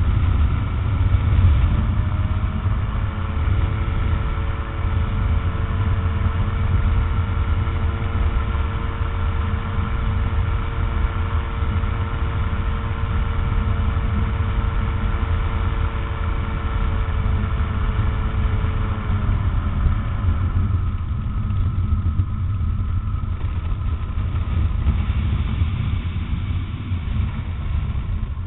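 Rotax 912 four-cylinder engine of an ultralight trike running steadily in flight, under a heavy low rumble. About two-thirds of the way through, its steady mid-range tones slide down a little and fade, leaving mostly the low rumble.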